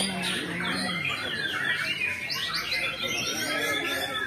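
Several caged white-rumped shamas (murai batu) singing at once: a dense, unbroken tangle of rapid, overlapping whistles and chirps.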